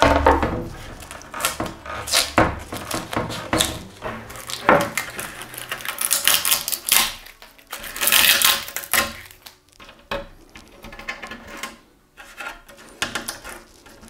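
Masking tape being peeled and torn off a freshly cured carbon-fibre resin repair on a bike chainstay: irregular crinkling, ripping and clicking bursts, loudest in the middle.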